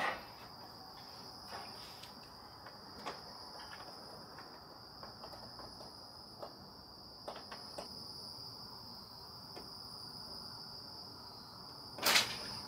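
Crickets chirping steadily in one high continuous band, with a few faint ticks and a short, louder noise near the end.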